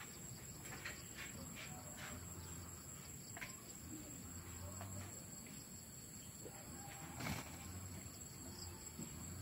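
Faint rural background with a steady high hiss, a few short chirps in the first few seconds and one sharp click about seven seconds in; the rooster is not crowing.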